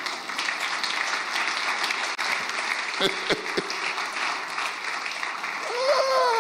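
Congregation applauding steadily, with a single voice calling out near the end.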